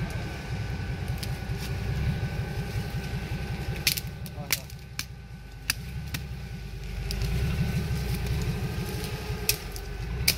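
Off-road 4x4's engine running at low revs on the jungle track, swelling a little about two-thirds of the way through, with several sharp clicks or cracks scattered over it.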